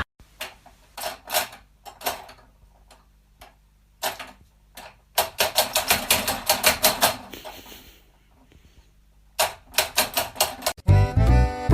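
A series of sharp taps or clicks, scattered at first, then in fast runs of about eight a second. Music starts near the end.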